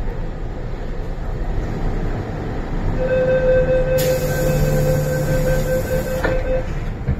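MTR M-Train electric multiple unit running on the Island Line, heard from inside the car as a steady rumble. About three seconds in a steady whine rises above it, joined a second later by a hiss that stops with a click a little after six seconds.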